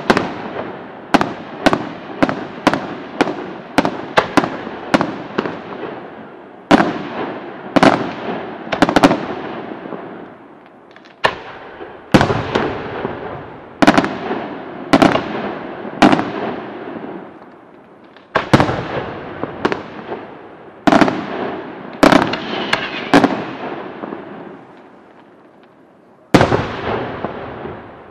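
Aerial firework shells bursting one after another: sharp bangs, each trailing off in a long echo, coming one or two a second at first, then more spaced out, with a lull of a few seconds before a last bang near the end.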